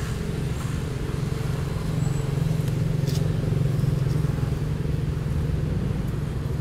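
Steady low engine drone, as of a motor vehicle, growing a little louder around the middle and easing off near the end, with a faint click about three seconds in.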